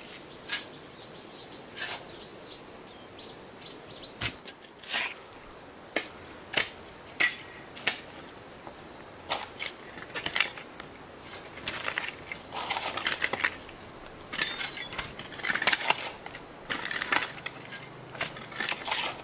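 Irregular sharp snaps and crunches, one at a time at first, then coming in quicker crackling clusters in the second half.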